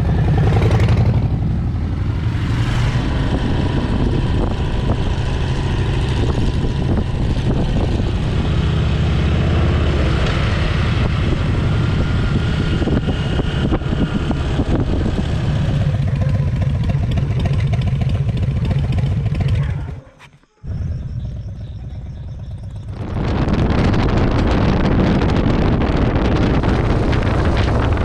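Cruiser motorcycle engines running steadily on the road, a low rumble with wind noise on the microphone. The sound cuts out for a moment about two-thirds of the way through, then returns quieter, and after that the wind hiss is stronger.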